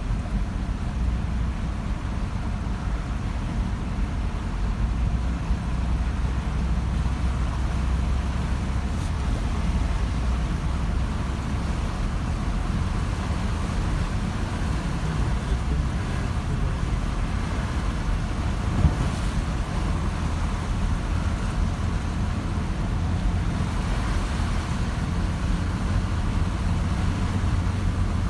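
Vehicle driving slowly through floodwater: a steady low engine and road rumble with water washing around the wheels. A single sharp knock comes about two-thirds of the way through.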